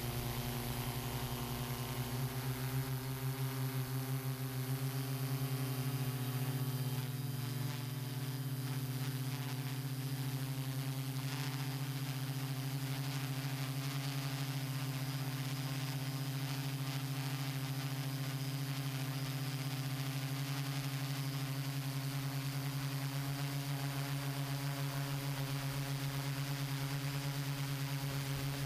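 Hexacopter drone's motors and propellers humming steadily in flight, with an even hiss of air and a slight shift in pitch in the first few seconds.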